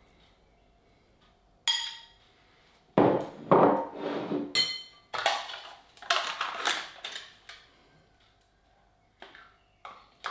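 A spoon scraping and clinking against a ceramic bowl and a glass mixing bowl as porridge is scooped out, with two ringing clinks, one just under two seconds in and one about four and a half seconds in. Later, a plastic pudding cup's lid is peeled off and the pudding spooned out, ending in a few small clicks.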